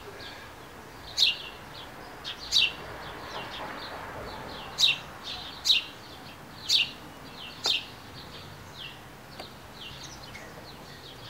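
A bird chirping repeatedly: short, sharp, falling chirps at irregular intervals, over faint steady background noise.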